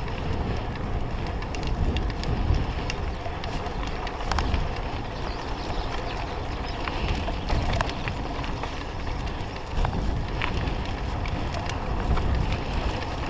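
Mountain bike riding over a dirt and gravel track, with wind rumbling on the microphone, tyre noise, and scattered sharp clicks and rattles from the bike and loose stones.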